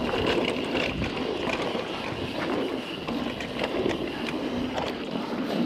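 Guerrilla Gravity MegaTrail mountain bike riding fast down a dirt singletrack: a steady rush of tyres on dirt and air past the mic, with many small clicks and knocks from the chain and bike rattling over roots and bumps.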